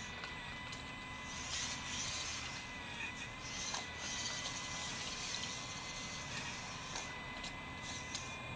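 1/14-scale RC hydraulic excavator's hydraulic pump whining steadily while the boom and bucket work, its pitch dipping briefly a few times, over a hiss that swells and fades.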